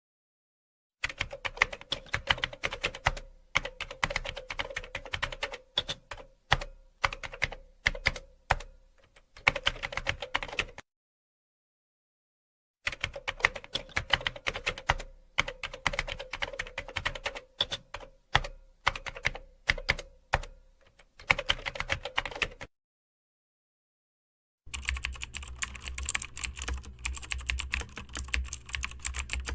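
Typing on a computer keyboard: fast runs of key clicks in bursts of a second or two, broken by two pauses of dead silence. About 25 seconds in, a different take begins, with denser typing over a steady low hum.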